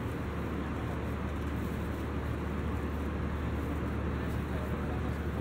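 Steady cabin noise inside an Airbus A320-200 in flight: an even, low rumble of the airflow and its IAE V2500 engines, unchanging throughout.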